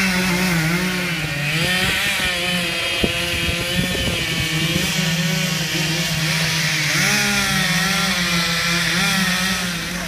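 Chainsaw running at high revs, its pitch wavering as the chain bites into and cuts through a tree trunk, with a brief knock about three seconds in.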